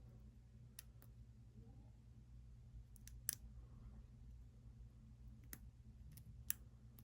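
Light metallic clicks of a single-pin pick and tension bar working the pins inside a Master Lock padlock: about seven short clicks at uneven intervals, the loudest a little past three seconds in.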